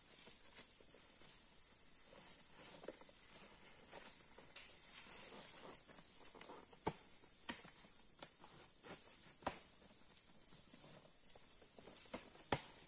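Steady high-pitched chorus of rainforest insects, with scattered short knocks and rustles from sacks being loaded onto a pack mule.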